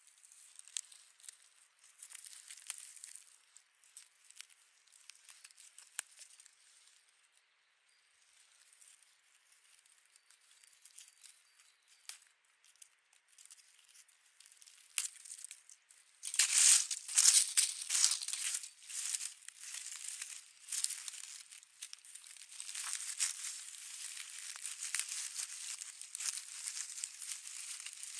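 Leaves and stems of wild plants rustling and tearing as they are picked and pulled up by hand, in a run of small crackles. The crackles are sparse at first and become busier and louder from about halfway through.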